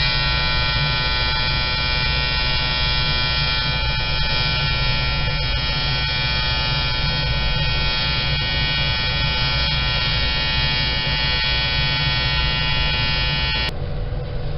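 TIG welding arc on stainless steel during a vertical-up weld: a steady electric buzz that holds one pitch and cuts off sharply about a second before the end, leaving a lower steady rumble.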